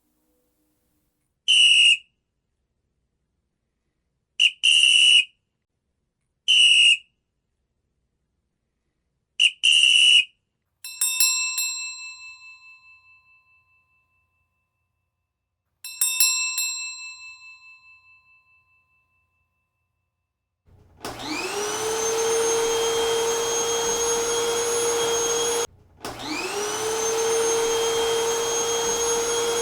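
A run of separate sound effects: four short, high whistle-like toots, then two ringing strikes that each die away over a few seconds, then a motorised appliance switching on and spinning up to a steady whine. It stops for a moment and spins up again.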